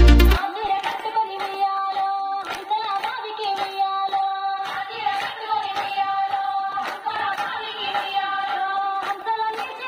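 Women and girls singing a Bathukamma folk song together, with steady hand claps, about two a second, keeping the beat. Loud electronic intro music cuts off about half a second in.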